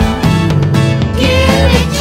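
Upbeat Christmas song with a steady beat.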